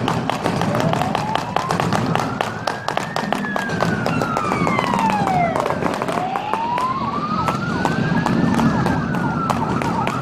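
Emergency vehicle siren wailing in slow rising and falling sweeps, with a second, faster warbling siren joining near the end, over a busy background of sharp clicks and a low rumble.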